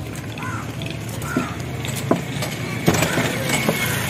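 Meat cleaver chopping chicken on a wooden chopping block: several irregular chops, most of them after the first second, over a steady low street hum.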